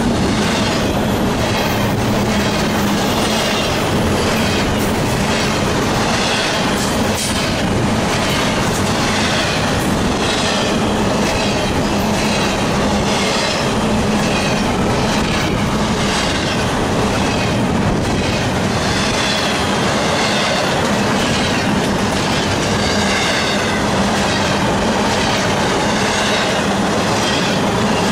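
Double-stack intermodal freight train of container well cars rolling past close by. It makes a steady, loud rumble with an even, rhythmic clatter from the passing wheelsets.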